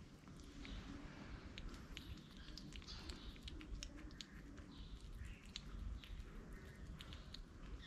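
Two kittens eating wet cat food from a plate: faint, quick wet clicks and smacks of chewing, over a low steady rumble.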